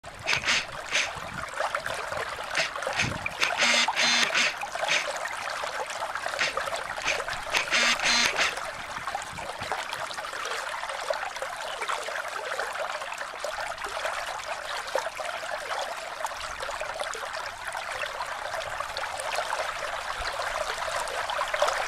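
Water running and trickling in a small glacial meltwater stream, a steady rushing hiss. It grows louder in a few brief spells during the first nine seconds.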